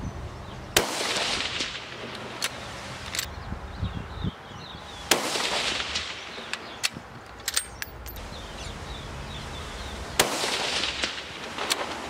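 Three rifle shots from a Howa .223, about five seconds apart, each a sharp crack followed by a short echo, with fainter clicks between them.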